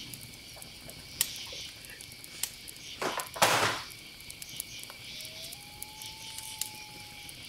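Crickets chirping steadily in the background. A short loud burst of noise comes about three and a half seconds in, and a thin steady tone that rises slightly sounds near the end.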